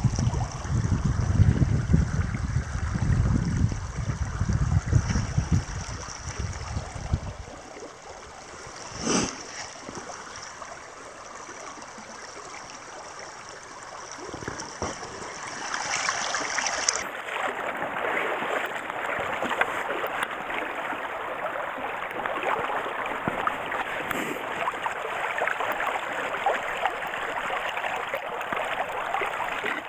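Shallow stream water rushing steadily over rocks and around a dip net held in the current, starting about halfway through. Before that there is a low rumble for the first several seconds, and a single knock.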